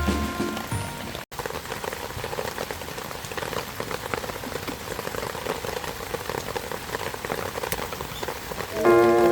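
Steady rain falling, an even hiss full of many small drop ticks. Background music fades out at the start and comes back in near the end.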